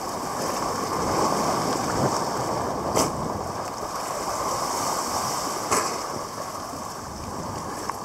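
Sea water sloshing and lapping right at the microphone, which is held at the waterline, with two sharp knocks about three and six seconds in.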